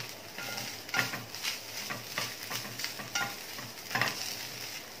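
A wooden spatula stirs and scrapes freshly grated coconut frying in ghee in a nonstick pan, over a soft sizzle. The scraping strokes are irregular, roughly two a second.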